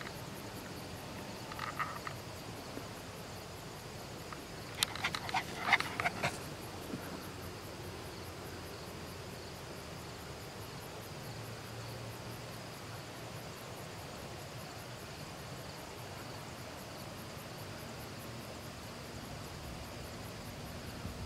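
Steady evening chorus of frogs and insects: a continuous drone with a fast, even high ticking. A short cluster of clicks and rustles comes about five seconds in, with a fainter one near two seconds.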